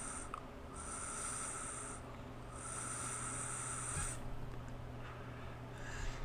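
Vaper pulling air through a rebuildable e-cigarette atomizer: a faint airy hiss drawn in three pulls of over a second each, stopping about four seconds in.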